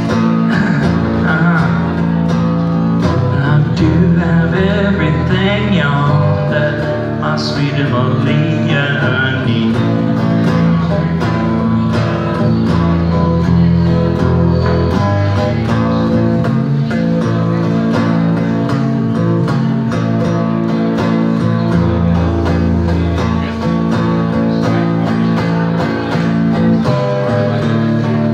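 Blues electric guitar instrumental break, played live through an amplifier, with bent notes in roughly the first ten seconds, over a steady beat.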